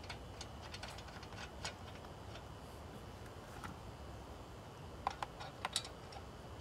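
Light metallic clicks and ticks as lug nuts are turned by hand onto the wheel studs of a Ford Fiesta's front wheel. The clicks are scattered, with a quick cluster of louder ones about five seconds in.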